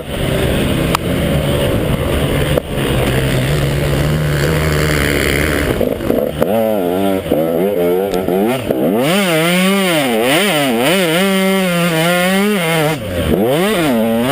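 KTM 150 XC two-stroke dirt bike engine running at a fairly steady low pitch, then from about halfway revving up and down again and again as the throttle is worked through the off-road course.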